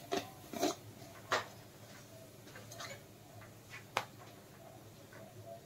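Cumin seeds, a green cardamom and a clove frying in hot oil in a kadai: a faint sizzle with scattered sharp crackles and pops from the spluttering seeds, the loudest about four seconds in.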